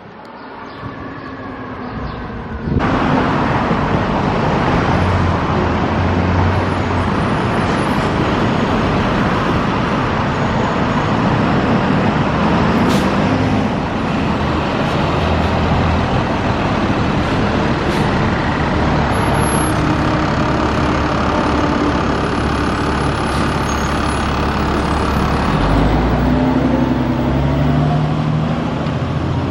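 Diesel engine of a Seagrave Marauder II fire engine running loud and close as the rig pulls out and drives past on a call. The noise starts suddenly about three seconds in, and a short sharp click is heard about halfway through.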